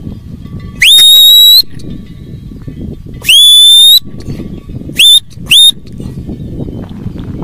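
Loud, high shepherd's whistle commands to working sheepdogs gathering a flock: two long whistles that sweep up and then hold, then two quick short ones, over a low steady rumble.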